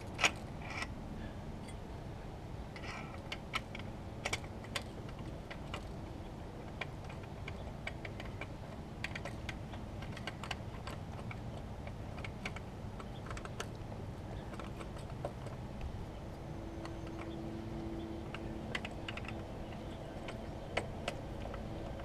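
Scattered small clicks and taps as a frame slider and its bolt are turned into a sport bike's frame mount by hand, over a low steady background rumble.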